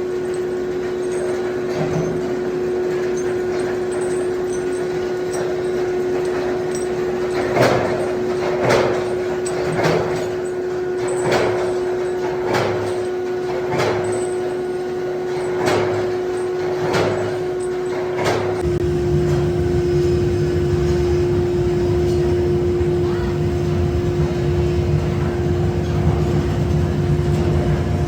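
Forging-shop machinery humming steadily, with a run of about ten heavy metal strikes roughly one a second through the middle. About two-thirds of the way through, a louder low rumble sets in and carries on.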